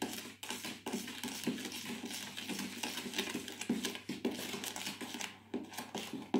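A metal utensil stirring and gently folding a soft mixture in a plastic mixing bowl: a steady run of quick, soft scrapes and taps against the bowl.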